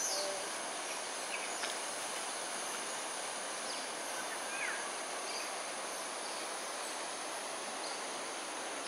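Steady outdoor ambience: a high, unbroken insect drone over an even hiss, with a few faint short bird chirps.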